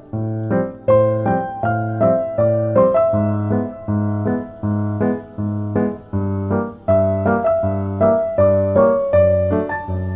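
Background piano music: a gentle melody over evenly repeated low notes at a steady pace.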